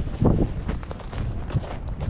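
Footsteps on snow, several uneven steps, with wind noise on the microphone. The loudest step comes just after the start.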